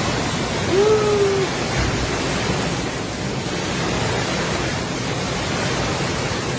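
Strong wind and heavy rain: a steady, loud rush of noise. About a second in, a short pitched tone rises and then holds briefly.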